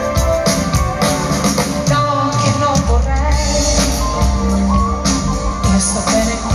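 Live band playing Italian pop-rock: a woman sings lead over guitars, bass, drums and keyboards, with a steady drum beat.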